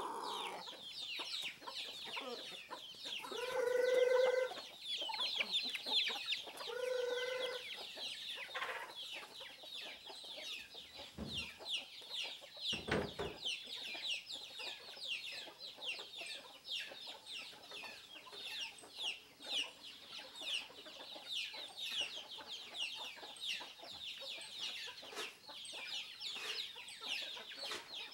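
Free-range domestic chickens calling: a steady stream of quick, high peeping chirps, with two louder, longer calls about four and seven seconds in.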